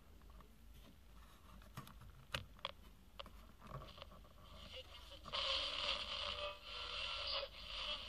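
Tetley portable AM/FM clock radio being tuned by hand: the sound through its small speaker drops out between stations, with a few clicks and scrapes from the tuning wheel, then a station's broadcast comes in again about five seconds in.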